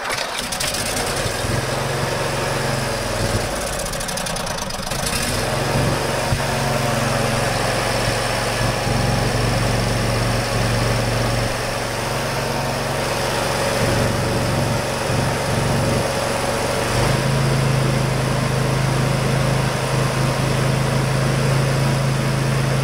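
John Deere L120 lawn tractor's 20 hp V-twin engine fires up at once and runs steadily and smoothly. It is running with the ignition wires to the safety switches disconnected, which bypasses a faulty safety switch that had been killing the spark. A new fuel pump is fitted, and the engine runs smoothly.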